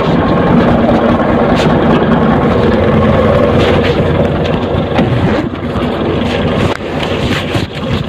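Large truck's engine idling steadily close by, with some wind rumble on the microphone.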